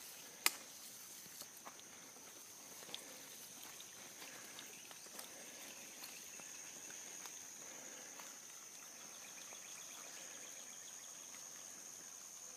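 Steady, faint high-pitched drone of insects, with a single sharp click about half a second in and a few fainter clicks scattered after it.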